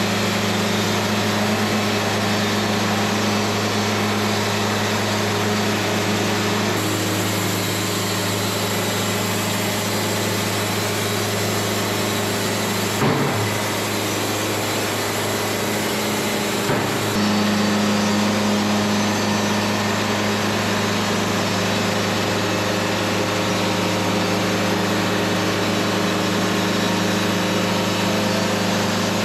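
Wood-Mizer LT70 band sawmill running steadily under load as its new band blade cuts lengthwise through a black walnut log. Its tone shifts a little partway through, with two short knocks a few seconds apart near the middle.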